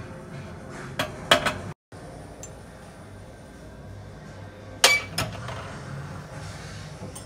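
Stemmed wine glasses clinking against each other and the glass shelf of a china cabinet as they are set in place: a few clinks about a second in, then two sharper clinks, the loudest, about five seconds in.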